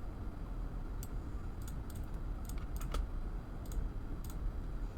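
Scattered clicks of a computer mouse and keyboard, about eight, irregularly spaced, over a low steady hum.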